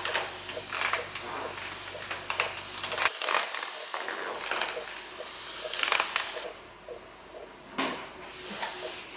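Flat microfiber spray mop swishing back and forth over a tile floor in repeated short strokes.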